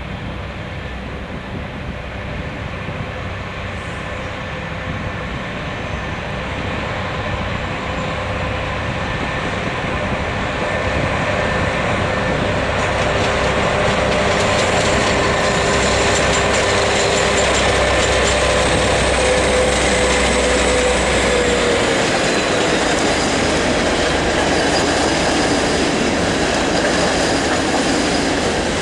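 TLK passenger train pulling into the station, growing louder over the first half as it nears, with wheel noise on the rails. Thin squealing tones run above the rumble and slide down in pitch a little after twenty seconds as the train slows.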